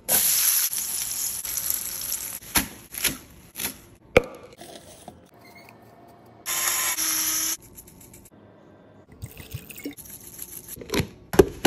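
Tomatillos going into hot oil in a nonstick pan, a loud sizzle that fades over a couple of seconds. Then a string of knocks and taps as the charred tomatillos are tipped from the pan into a blender cup, with two short hissing bursts later on.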